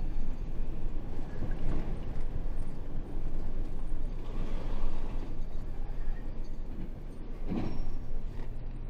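Isuzu 8x4 heavy truck's diesel engine running with a steady low rumble and rattle, with a brief louder rush near the end.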